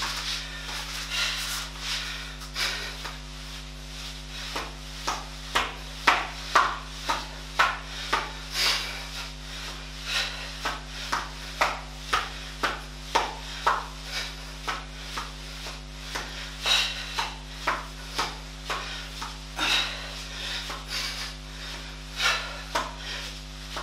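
A man doing a seated floor exercise on a gym mat, breathing out sharply and thumping softly on the mat in a steady rhythm of about one to two strokes a second, hard at work near the end of a workout. A steady low electrical hum runs underneath.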